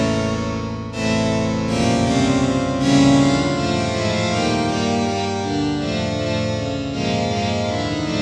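Darksichord virtual harpsichord plugin playing slow chords: a multi-sampled harpsichord layered and processed for a darker sound, with notes that ring on. New chords are struck about one, two and three seconds in, and again near the end.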